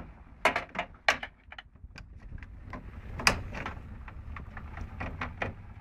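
Irregular clicks, knocks and rattles of hands handling cables and parts inside a computer case while the cables are pulled through, with the loudest knock about halfway in.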